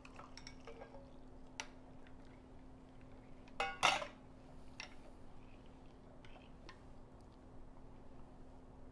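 A few scattered clinks of kitchen utensils: a small metal pan and a whisk knocking against a glass bowl and a stone countertop while sauce is mixed, the loudest a ringing clink about four seconds in. A faint steady hum runs underneath.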